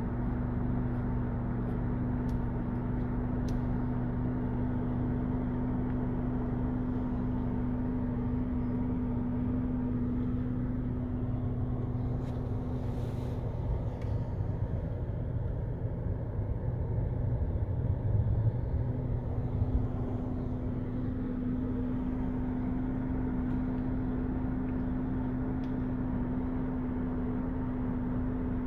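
A motor vehicle's engine idling with a steady low hum. The hum weakens for several seconds near the middle, where a louder rumble swells briefly.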